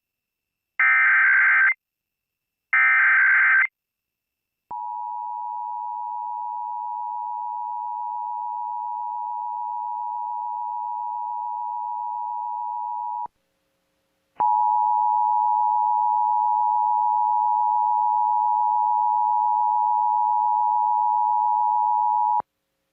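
Emergency Alert System test: the last two short data bursts of a SAME header, then the two-tone EAS attention signal (853 and 960 Hz) held steady for about eight seconds, a brief gap, and the attention signal again, louder, for about eight seconds.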